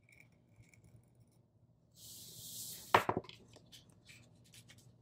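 A cutting blade drawn across a sticker on paper: a faint start, then a hissing scrape for about a second, a sharp knock about three seconds in, and a few lighter scratches after. The blade is struggling to cut, which is taken to mean it needs sharpening.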